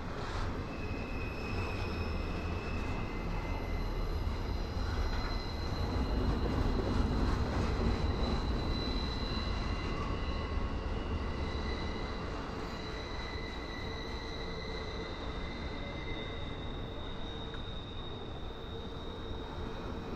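Double-stack intermodal freight cars rolling past with a steady low rumble, a thin high squeal from the wheels drawn out over several seconds at a time.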